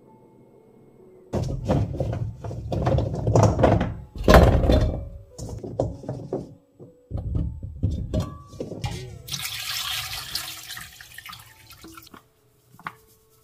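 Water splashing and sloshing with irregular knocks, then a steady stream of running water for about three seconds near the end.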